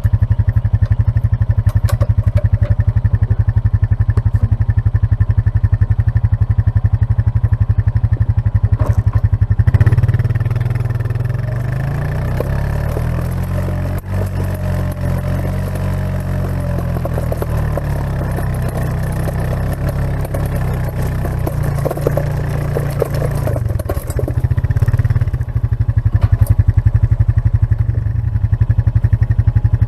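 Kubota KX-018 mini excavator's small diesel engine running steadily. About a third of the way in, the engine note drops and wavers for roughly fifteen seconds, then returns to its steady run, with a few short knocks along the way.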